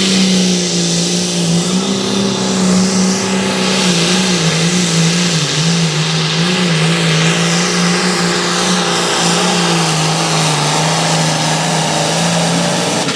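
Hot farm pulling tractor's engine running flat out under load while pulling the sled, a loud, steady high-revving note that wavers and sags slightly as the engine loads down partway through the pull.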